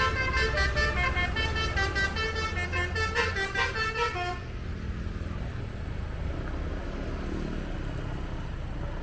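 Bus's basuri telolet horn playing a quick melody of short, stepping notes, which stops a little over four seconds in. After that only the low, steady rumble of the moving vehicle and road noise remain.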